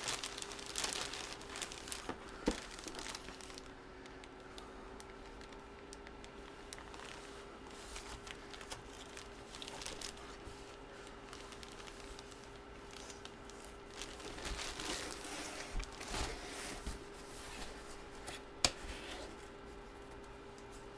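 Plastic packaging crinkling and rustling as it is handled, in two spells with a couple of sharp clicks, over a faint steady hum.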